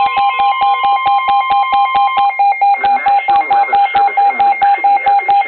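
Weather radios sounding a severe thunderstorm warning alert: the steady 1050 Hz NOAA Weather Radio warning tone stops about two seconds in, under a radio's own alert beep pulsing about five times a second. The broadcast voice starts up faintly beneath the beeps about halfway through.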